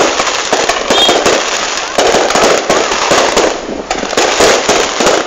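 Fireworks going off in a dense, unbroken barrage of bangs and crackles.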